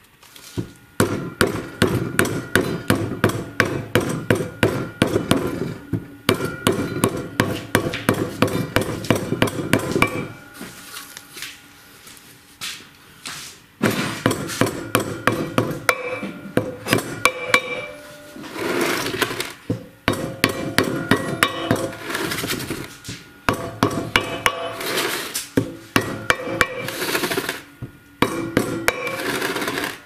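A hand hammer tapping a ring into the bearing housing at the hub of a Miele washing machine's drum spider. The strikes come quickly, several a second, each with a metallic ring. They fall in runs, with a longer pause about a third of the way through.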